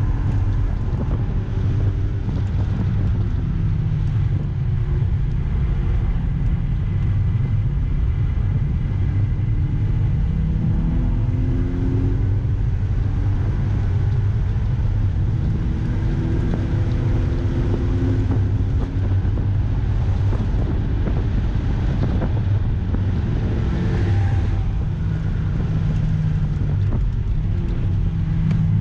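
Mazda MX-5's four-cylinder engine driven hard, its pitch climbing and falling several times as it accelerates and eases off, under heavy wind and road noise inside the cabin.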